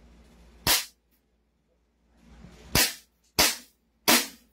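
Gas-powered airsoft pistol firing four single shots, each a sharp crack: one about a second in, then after a pause of about two seconds three more in quick succession, about two-thirds of a second apart.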